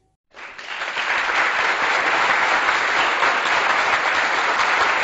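Crowd applause that starts about a third of a second in, builds within half a second and then goes on steadily.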